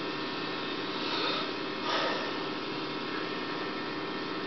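Steady electrical mains hum and hiss of an old video recording, with faint brief indistinct noises about one and two seconds in.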